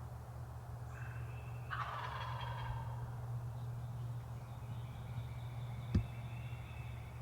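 A wild turkey gobbling once, about two seconds in: a quick rattling call. A steady low rumble runs under it, and a single sharp click comes near the end.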